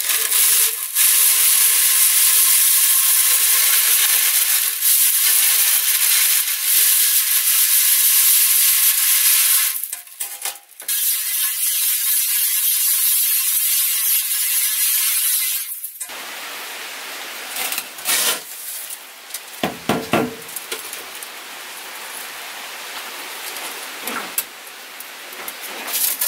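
A drill spins a rotary chimney cleaning head's nylon line whips inside a soot-coated section of stove pipe, scouring off the soot and creosote buildup. It gives a steady whine over a loud hissing scrape, with a brief break about ten seconds in, and stops about sixteen seconds in. After that there is quieter rubbing and scraping, with a knock about twenty seconds in.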